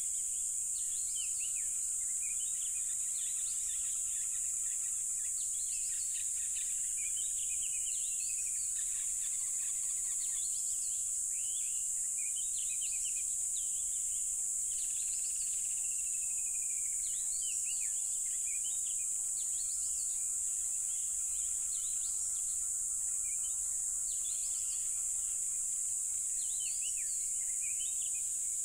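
A dense chorus of crickets making one steady, very high-pitched drone, with many short bird chirps and a few slow falling whistles over it.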